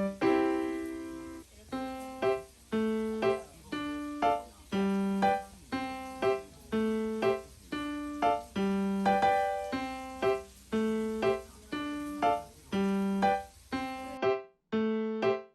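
Background music: a simple piano tune of evenly spaced single notes, each fading after it is struck.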